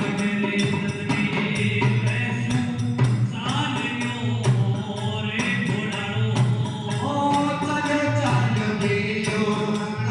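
Devotional bhajan music: a male singer's voice over percussion keeping a steady beat.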